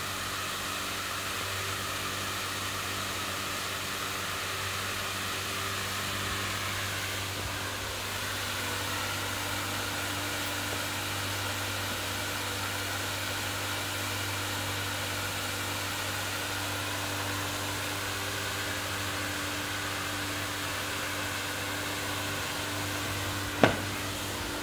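Fire hose jetting water under pressure from a running fire pump: a steady hiss over an even engine hum. A single sharp click comes near the end.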